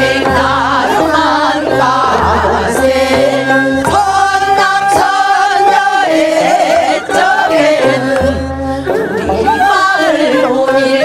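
A group of women singing a Korean folk song (minyo) together through microphones, their voices wavering with strong vibrato over an instrumental accompaniment with a steady bass.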